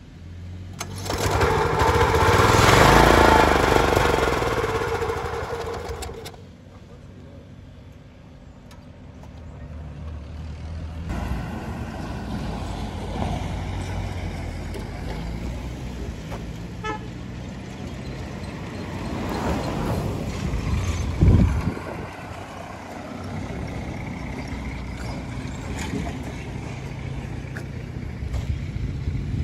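Street traffic: a vehicle goes by with its horn sounding over the first few seconds, then steady traffic noise with another vehicle passing a little past two-thirds of the way through.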